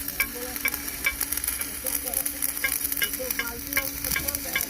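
Stick (arc) welding: the electrode's arc crackling and sizzling steadily like frying, over a steady low hum.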